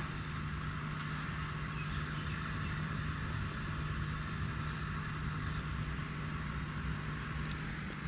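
An engine running steadily at an even pitch, a constant low hum over an outdoor hiss.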